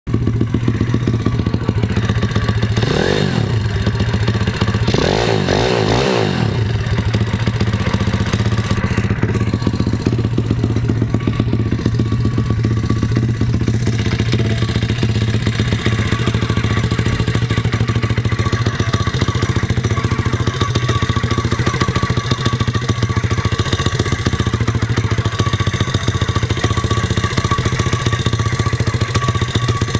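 YX 149 cc single-cylinder four-stroke pit bike engine idling, revved up briefly about three seconds in and again around five to six seconds in, then settling back to a steady idle.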